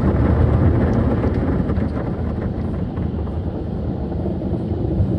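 Tunnel car wash working over a foam-covered car, heard from inside the cabin: a steady, loud low rumble of water and wash equipment against the body.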